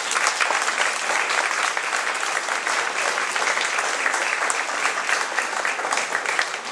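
Audience applauding: dense, steady clapping from many hands, dying down near the end.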